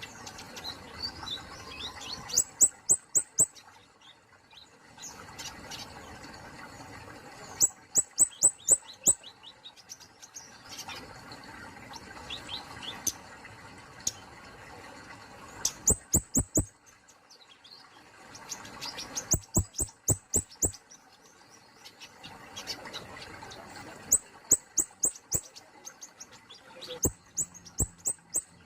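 Kemade polos songbird calling: about six bouts of rapid, sharp, high-pitched notes a few seconds apart, with softer warbling notes between them.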